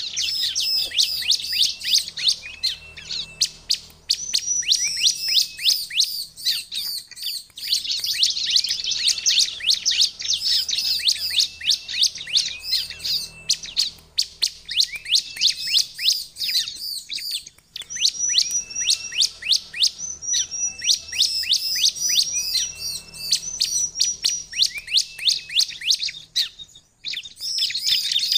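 Caged ciblek (a prinia) singing: a rapid, nearly continuous chatter of sharp, high repeated notes in long phrases, with a few brief breaks.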